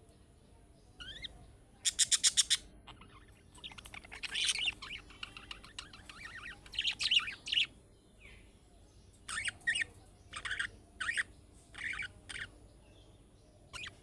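Budgerigar chirping and chattering: a quick run of sharp chirps about two seconds in, a warbling chatter through the middle, then a string of short separate calls near the end.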